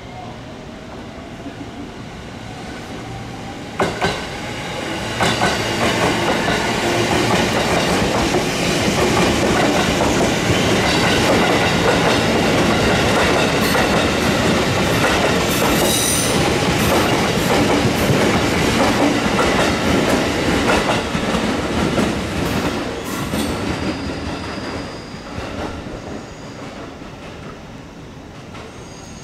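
JR East 205 series electric multiple unit passing close by, its wheels clattering over the rail joints. The sound builds over the first few seconds, with a sharp click about four seconds in, stays loud for some fifteen seconds as the cars go by, and fades near the end.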